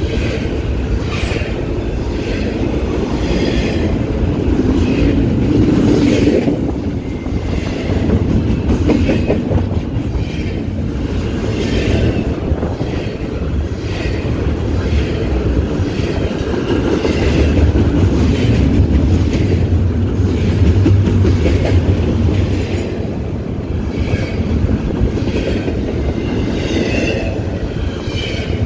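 Long freight train of double-stack container cars passing close by at speed: a steady heavy rumble with wheels clicking over rail joints at intervals and a faint wheel squeal now and then.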